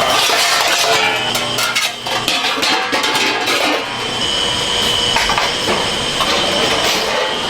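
Pieces of steel clanking and clinking as they are struck and handled, over steady workshop noise, with a thin high whine setting in about four seconds in.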